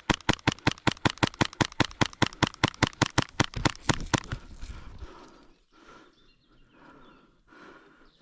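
Airsoft replica firing a long automatic burst of evenly spaced shots, about nine a second, which stops about four and a half seconds in.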